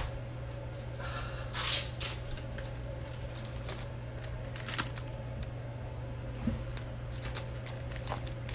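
Trading cards and their plastic holders being handled and set down on a table: a short rustling slide just under two seconds in, then scattered light clicks and taps.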